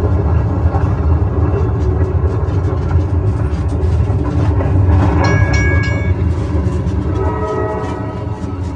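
A small trackless park train running, with a steady low rumble from its motor and wheels on the concrete path. About five seconds in a high tooting tone sounds over it, and near the end a run of stepped tones follows, like a played tune.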